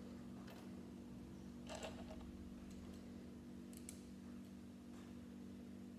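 Faint, scattered clicks of small plastic Lego pieces being handled and pressed together, a small cluster about two seconds in, over a steady low hum.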